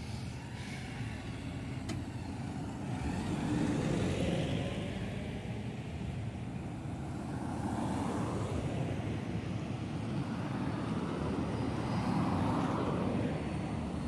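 Road traffic passing on a highway: cars and a bus drive by one after another, each swelling up and fading over a steady low engine rumble.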